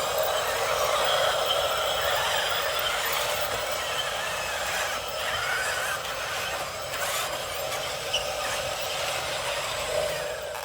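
Small electric motors and gearboxes of radio-controlled toy construction vehicles whirring, a steady high-pitched mechanical noise with faint shifts in pitch.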